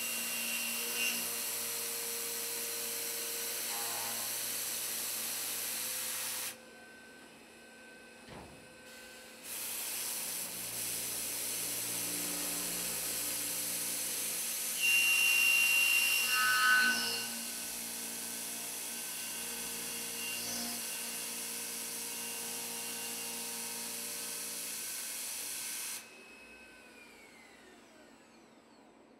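Voortman V310 CNC mill's end mill contour-milling a steel plate: a steady cutting hiss and whine with held tones. It dips for about three seconds a quarter of the way in, rises to its loudest with a sharp high squeal a little past halfway, and falls away near the end.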